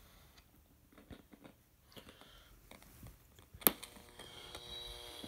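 Faint small clicks, then one sharp click about two-thirds of the way in, after which the breadboard PA amplifier's speaker gives a steady mains hum.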